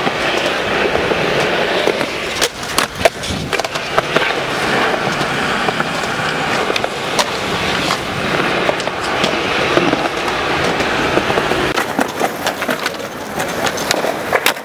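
Skateboard wheels rolling over concrete with a steady grinding rumble, broken by sharp wooden clacks of the board being popped and landing, with several in quick succession a couple of seconds in and again toward the end.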